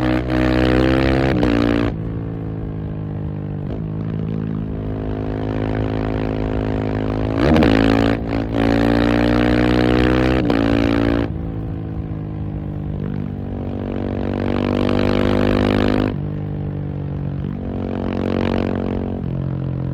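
KTM 690 SMC R supermoto's 690 cc single-cylinder engine under way. It revs up quickly about seven seconds in. The revs drop suddenly three times, at throttle closings or gear changes, and climb slowly again after the later two.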